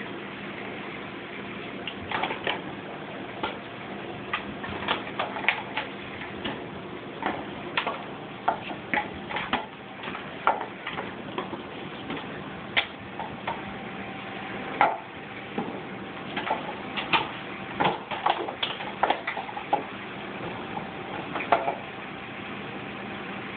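Irregular clicks and crackles of a Petit Basset Griffon Vendéen dog mouthing and chewing a hard toy, in scattered bursts, over a steady faint hum.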